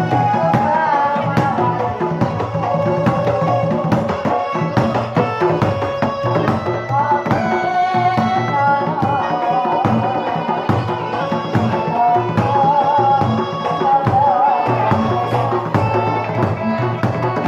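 East Javanese bantengan ensemble playing: kendang hand drums and a jidor bass drum beating a fast, dense rhythm, with a wavering melody line over them. The music drops away at the very end.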